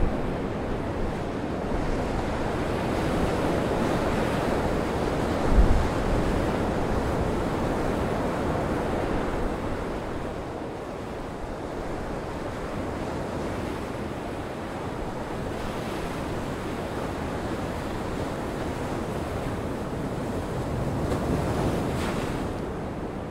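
Gale wind and breaking sea surf as a steady rushing noise, with wind buffeting the microphone; a heavy gust blast hits the microphone about five and a half seconds in.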